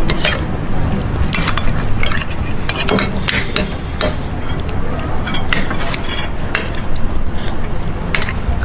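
Metal spoons scraping and clinking irregularly against ceramic plates as rice porridge is scooped up and eaten, over a steady low background rumble.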